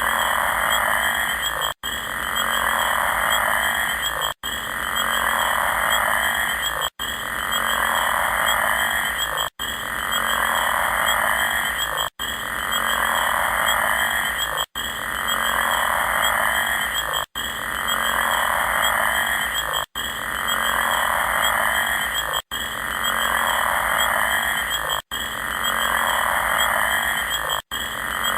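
An animal chorus from a nature recording, a short clip looped about every two and a half seconds with a brief cut between repeats.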